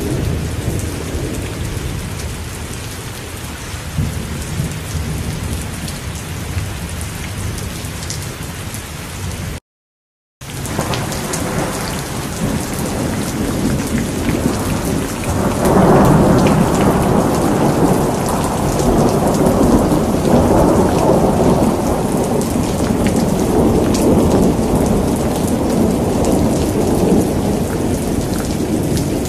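Steady rain falling with thunder: a long rolling rumble builds about halfway through and carries on until near the end. The sound cuts out completely for about a second a third of the way in.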